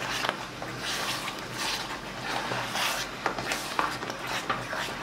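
A spatula scraping and squelching through thick, sticky urad dal kesari paste in a non-stick kadai, in quick, irregular stirring strokes as the mixture thickens with ghee.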